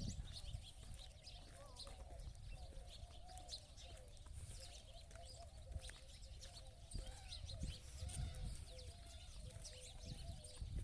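Birds chirping faintly in the background, with many small high chirps, over a low rumble and a faint wavering tone that runs throughout.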